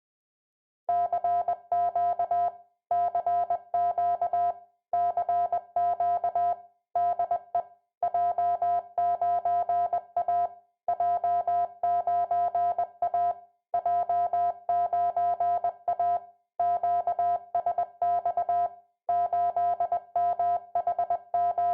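A CW transmitter's Morse-code monitor tone: one steady mid-pitched beep keyed in rapid dots and dashes, sent in groups with short pauses between them, calling CQ. A faint low hum from the transmitter and its power transformer sounds along with each keyed tone.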